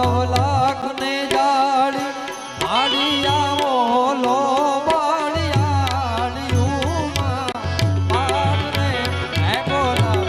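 Instrumental interlude of Gujarati devotional folk music: a melodic lead with a heavy wavering vibrato plays over tabla-like hand percussion. A deep bass beat drops out shortly after the start and comes back about five seconds in.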